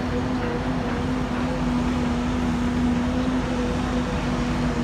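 Steady machinery noise on a building construction site, a constant hum with one held low tone and no breaks.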